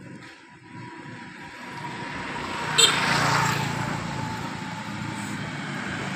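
A motor vehicle engine running, growing louder over the first three seconds and then holding steady, with a single sharp click about three seconds in.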